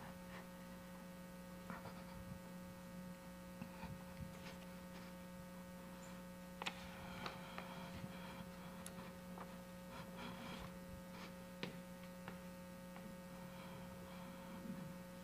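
Steady electrical mains hum, with faint scattered ticks and rustles.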